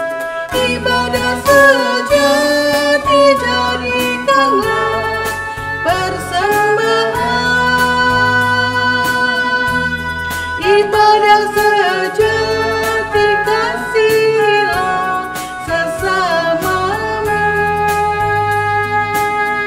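A hymn sung over instrumental accompaniment, with a melody of held notes above a steady bass line.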